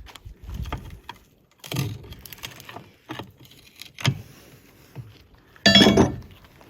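Scattered metal knocks and clanks as an old tire is worked off a steel split rim, ending in one loud ringing metallic clang near the end.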